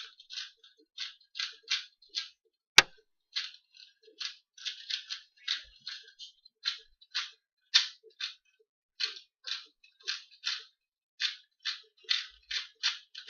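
A 2x2 Rubik's cube being turned quickly during a timed solve: a run of plastic clicks, about two or three a second, with one sharper, louder click about three seconds in.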